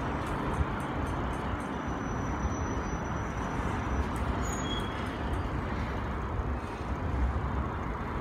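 Covered hopper cars of a BNSF grain train rolling across a steel truss bridge: a steady rumble of wheels on the rails, with a few faint clicks early on and a brief thin squeal near the middle.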